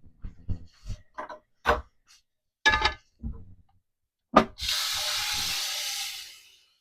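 Clinks and knocks as the canner pot is handled, then a sharp knock and a kitchen tap running into the electric canner pot for about two seconds with a steady hiss before tapering off.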